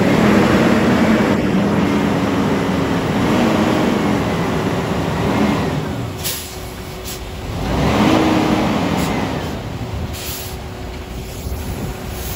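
Diesel engines of a dump truck and an asphalt paver running together as the truck tips asphalt into the paver. The engine note wavers and swells about eight seconds in, with a few short, high hisses of air.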